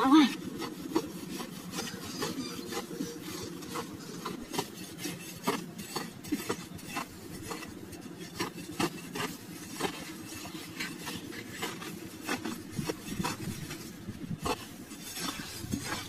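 A metal blade digging and scraping into dry soil, in irregular short scrapes and chops, several a second.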